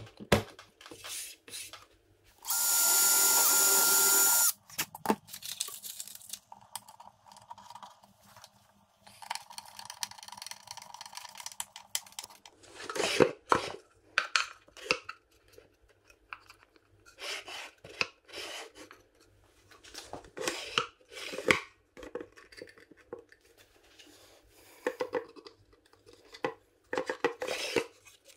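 A cordless drill runs in one steady burst of about two seconds near the start. Otherwise wooden parts are handled and fitted, giving a string of knocks, taps and clicks with some rubbing in between.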